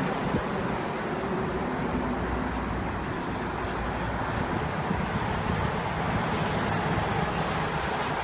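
Steady highway traffic noise: the low, even rumble of cars and heavy vehicles running along a multi-lane parkway, with no siren.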